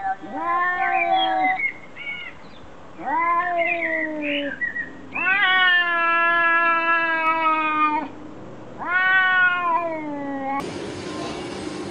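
Domestic cat meowing in four long, drawn-out calls with pauses between them. Near the end the sound cuts abruptly to a steady background noise.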